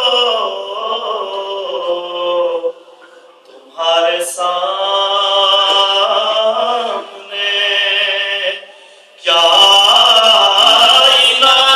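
A solo male voice singing a devotional Urdu naat in praise of the Prophet, with no instruments, in long held, wavering phrases. The singing breaks off briefly twice, about three seconds in and again near nine seconds.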